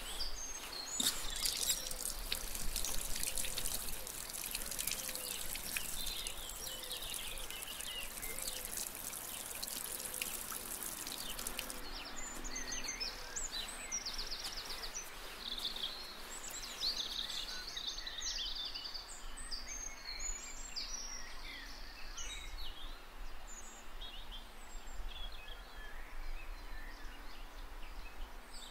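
Outdoor ambience of birds chirping and calling, many short, quick calls throughout, over a high steady hiss that stops abruptly about twelve seconds in.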